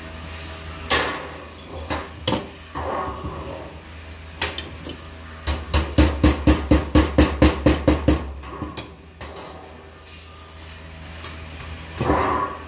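Galvanized sheet-metal duct stack being cut with hand snips: a quick, even run of about a dozen sharp metallic clicks in the middle. Before and after it, the thin sheet clanks and rattles as it is handled on the bench.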